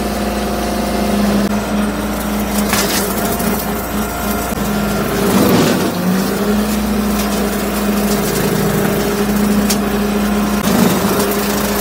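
Bobcat CT2025 compact tractor's diesel engine running steadily under load, its note dipping briefly about halfway through and again near the end, with brush and wood cracking a few times as the tractor pushes through.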